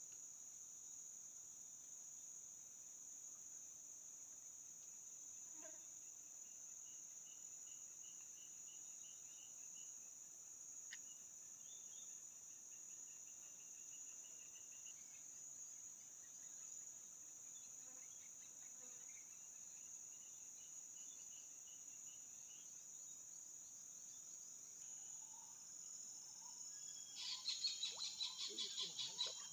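Insects droning steadily at a high pitch, with a repeated chirping trill through the middle. About three seconds before the end, a loud, rapid run of clicks from a spinning fishing reel being wound.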